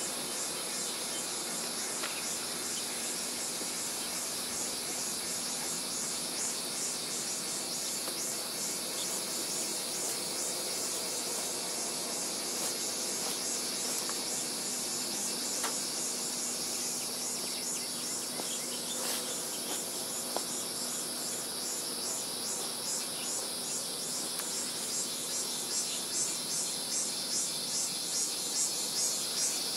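Insects chirring in a steady high-pitched drone that pulses evenly, growing louder near the end at about two to three beats a second.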